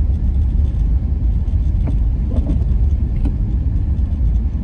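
A car's road and engine noise heard from inside the cabin while driving: a steady low rumble.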